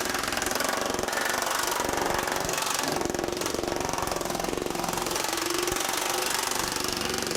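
TM Technologies pneumatic power hammer running with aluminum shrinking dies, striking 1100 .050 aluminum sheet in a rapid, steady stream of blows as the metal is shrunk.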